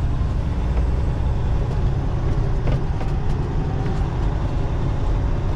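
Semi truck's diesel engine and road noise, a steady low rumble heard inside the cab while the truck is driven slowly.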